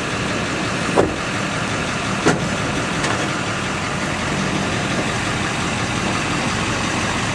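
Chevrolet Duramax diesel pickup engine running at idle as the truck reverses the boat trailer down the ramp, a steady low hum. Two brief knocks stand out, about one second and two seconds in.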